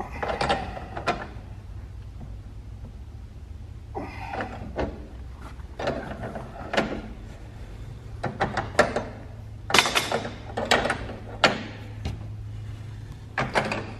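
Irregular clicks, knocks and short scrapes of blue Prevost aluminium compressed-air pipe and its fittings being tightened and pressed into wall clips by hand, over a steady low hum.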